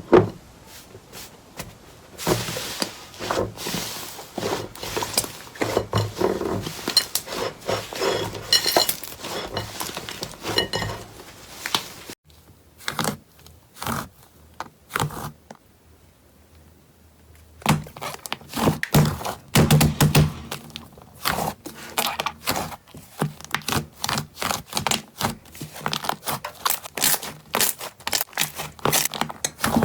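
Slime being pressed, poked and stretched by hand, giving a dense run of small sticky pops, clicks and crackles. The sound thins to scattered pops for a few seconds near the middle, then turns dense again.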